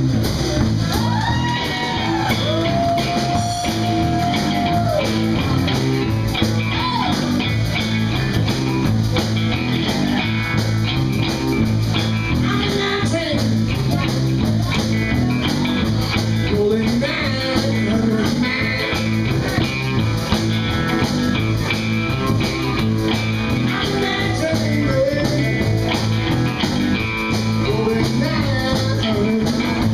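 Live band playing a blues-rock groove: electric guitar, bass and drum kit, with singing at times.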